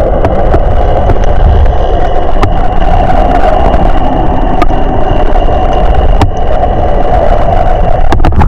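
Motorboat running under way: a loud, steady engine and rushing noise with a few sharp knocks.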